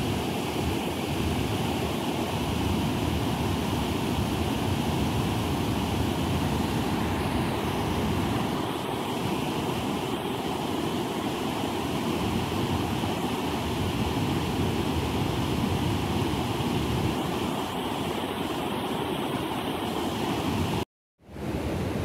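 Water rushing steadily over a low stepped river weir. The sound cuts out for a moment near the end.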